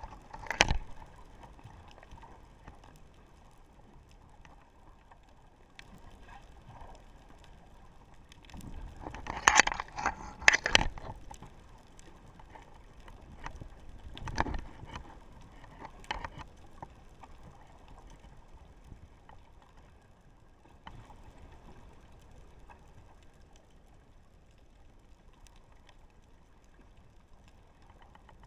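Underwater sound picked up by a sunken action camera: a quiet steady hiss of the sea, broken by muffled knocks and rattles. The loudest is a cluster of them about a third of the way in, with single knocks a little past halfway.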